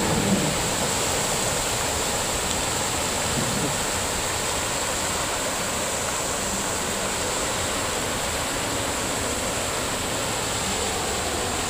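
Large fountain's water jets splashing steadily into its pool.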